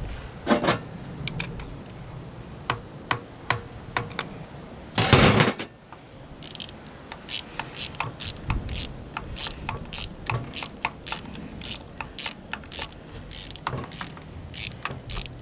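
Hand tool working on metal during the fit of a stainless sleeve onto an outboard's propeller shaft: a run of sharp metallic clicks, scattered at first and then two or three a second, with a brief loud rushing burst about five seconds in.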